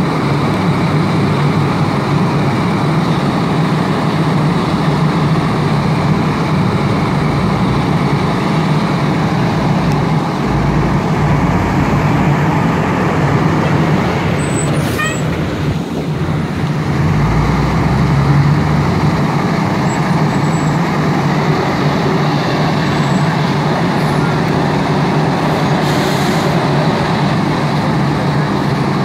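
A fire truck's diesel engine running steadily, a constant low drone, with a brief hiss near the end.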